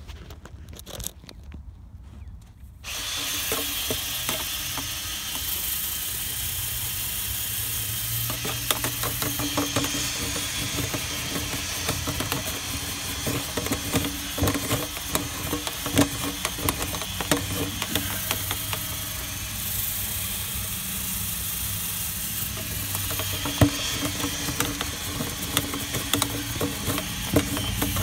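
Power drill starting about three seconds in and running steadily, spinning a dryer-vent cleaning brush on extension rods inside the duct, with many small knocks and rattles of the rod in the vent.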